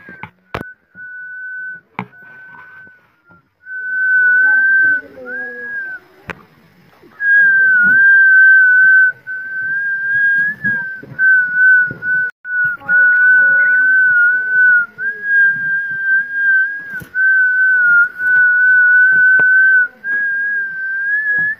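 A high, steady whistling tone that wavers slightly and steps a little up and down in pitch. It is held for several seconds at a time with short breaks, and is louder and nearly continuous after the first few seconds.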